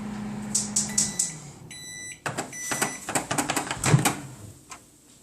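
Microwave oven running with a steady low hum that stops about a second in. A beep follows, then a shorter tone, then a run of sharp clicks and clatter as the microwave door is opened and the plate handled.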